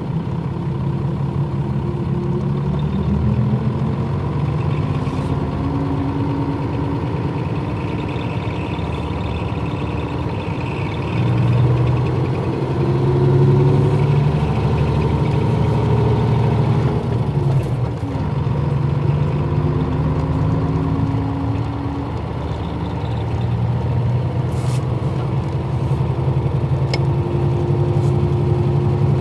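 Nissan Diesel KL-UA452MAN city bus's diesel engine running under way. Its pitch and loudness rise and fall as the bus accelerates and slows, and it is loudest about halfway through.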